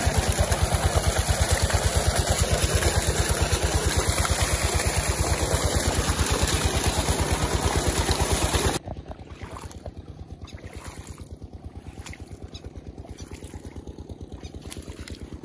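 Water gushing from a tubewell outlet pipe and splashing over a shoe and into a ditch, over the rapid, steady thudding pulse of the pump engine. About nine seconds in it cuts to a much quieter stretch: the engine pulse is fainter and there are footsteps on wet grass.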